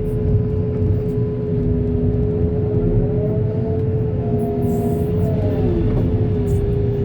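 Backhoe loader's diesel engine running with a low rumble and a steady whine, with fainter tones gliding up and down a few times as it works.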